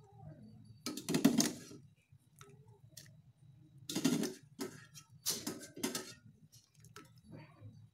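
Wire-mesh strainer ladle clattering against a stainless steel pot and a plate as boiled broccoli and carrots are scooped out and tipped onto the plate, in three or four short bursts of knocks.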